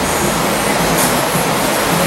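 Small benchtop belt grinder running with nothing held against the belt: a steady motor and belt whir with a low hum, no changes.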